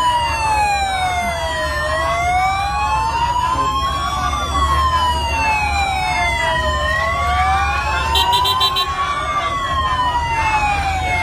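Police escort sirens wailing in a slow rise and fall, about one sweep every five seconds, with the glides of more than one siren crossing each other, over a low rumble of vehicles. About eight seconds in, a short burst of rapid high beeps sounds over the wail.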